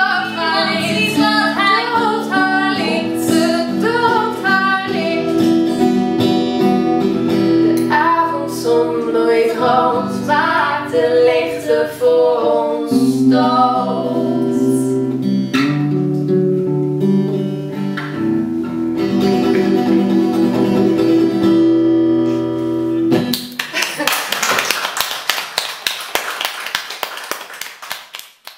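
Live acoustic guitar and voices playing out the end of a folk-style song without words. The music stops about 23 seconds in and is followed by a few seconds of clapping that fades out.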